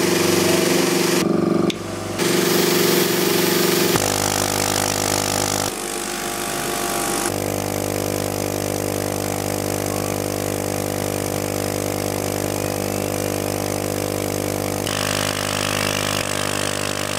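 6040 CNC router's high-speed spindle, turning about 35,000 RPM, driving a TiAlN-coated end mill through 5 mm aluminium at 0.5 mm depth per pass: a steady machine whine made of several held tones with cutting noise over it. The sound shifts abruptly several times as the tool path changes, with a short drop in level about two seconds in.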